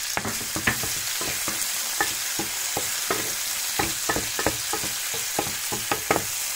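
Prawns and langoustines sizzling steadily in hot oil in a non-stick frying pan, stirred with a wooden spatula, with frequent short clicks and scrapes against the pan.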